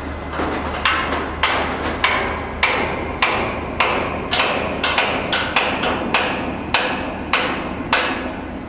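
Hammer blows on steel, a sharp ringing strike about every half second, from work on a modular steel truss bridge.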